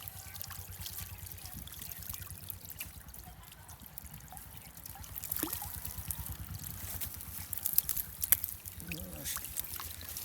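Water trickling and splashing, with scattered sharp clicks and small splashes that are loudest about eight seconds in.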